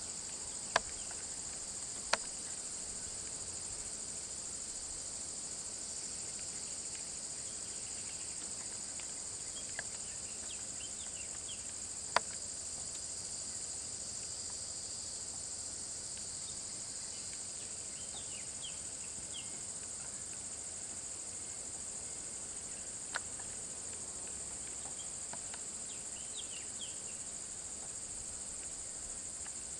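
Steady, high-pitched insect chorus of a tropical forest, broken by a few sharp clicks and some faint short chirps.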